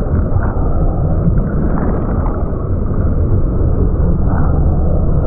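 Loud, steady, dull roar of a barrelling ocean wave and rushing water around a kitesurfer riding through the tube.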